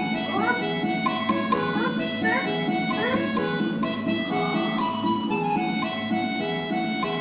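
Instrumental music with a steady, even accompaniment and a melody that slides between notes.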